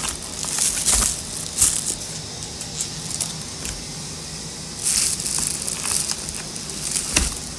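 Crinkling and rustling of a meal-kit box's foil bubble-insulation liner, plastic-wrapped packs and cardboard being handled, in several short bursts.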